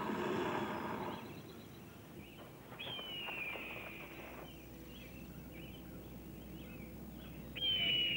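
An alligator's deep, cavernous, slightly hoarse mating bellow, fading out about a second in. Then comes a bird's high, falling whistled call, twice, about five seconds apart, over faint outdoor background.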